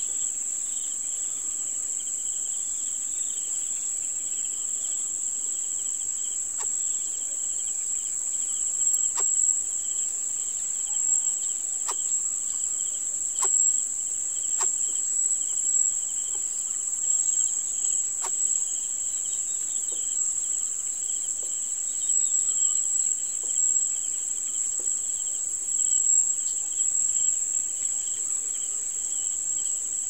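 A steady, high-pitched chorus of insects that never lets up, over a second, lower buzz that pulses, with occasional faint short ticks.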